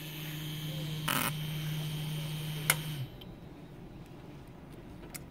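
Small 24 V brushless DC motor with built-in driver (BL2854D, 28 mm) running unloaded with a steady hum and a faint high whine. A brief rustle comes about a second in and a sharp click near the end of the run, then the motor stops about three seconds in.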